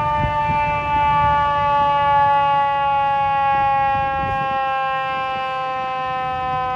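Fire truck siren wailing on one long held tone, its pitch sliding slowly downward, over a low engine rumble.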